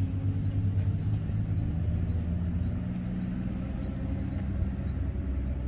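Distant road traffic: a steady low rumble, with a faint engine hum that comes and goes in the middle.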